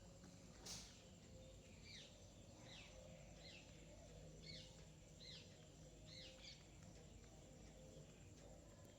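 A small bird calling faintly: a series of about eight short chirps, each falling in pitch, repeated under a second apart over a few seconds. A single sharp tap sounds about a second in.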